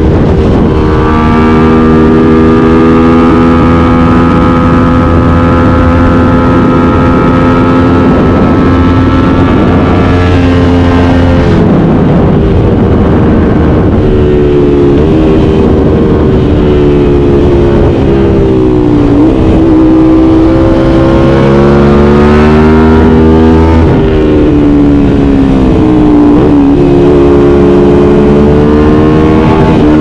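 Aprilia RS 660's parallel-twin engine through an SC Project CR-T exhaust, heard on board while riding. It holds steady revs for about ten seconds, then revs up and down several times, with a few sudden drops in pitch.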